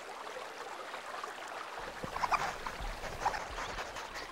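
Shallow stream running over rocks in a steady rush, with a few short, higher sounds a little past halfway.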